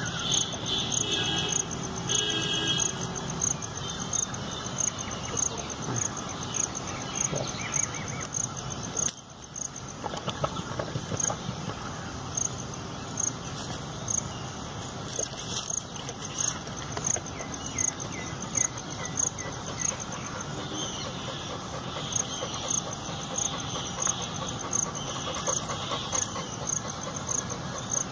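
An insect calling in short, evenly spaced high chirps, about two a second, over a steady low background noise.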